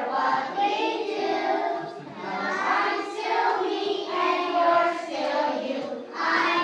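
A group of young children singing a song together, with short breaks between phrases about two and six seconds in.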